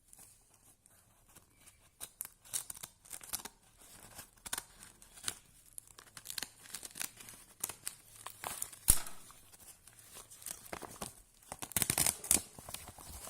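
A mail package being torn open by hand: irregular tearing and crinkling of paper packaging, with one sharp click about nine seconds in and a louder run of tearing near the end.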